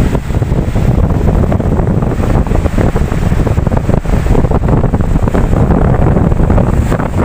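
Ocean waves washing in continuously, with wind buffeting the microphone in a loud, steady low rumble.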